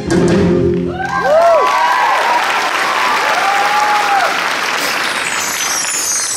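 A song's last held chord ends about a second in, and an audience applauds, with a cluster of rising-and-falling whoops right after and another long whoop about three seconds in.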